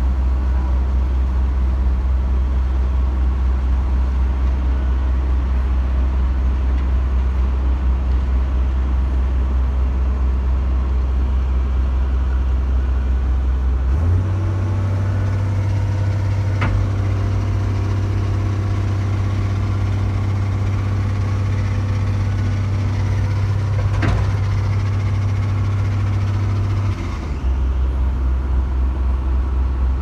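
Steady low rumble of a vehicle engine running, heard from inside the vehicle; the drone steps up slightly in pitch about halfway through and drops back near the end, with a couple of faint clicks.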